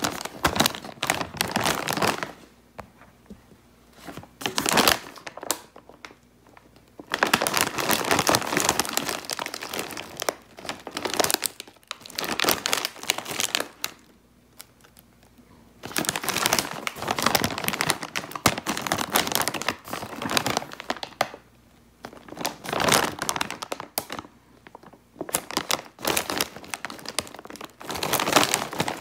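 Crinkling of a plastic snack bag of potato fries as it is handled and turned over, in bursts with short quiet pauses between.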